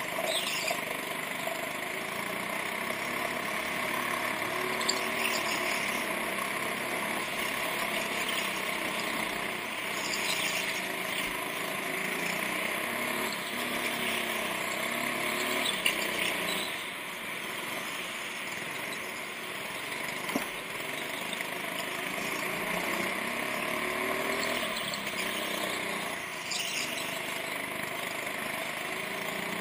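Go-kart engine running as the kart laps, its pitch rising and falling with the throttle, heard from on board. A few short squeals and knocks break in as it takes the corners, the sharpest about halfway through.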